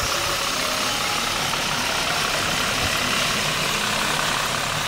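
Daewoo X25D inline-six engine idling steadily.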